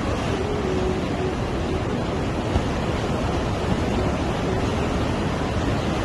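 Sea surf breaking on a rocky shore, a steady wash of noise, with wind buffeting the microphone.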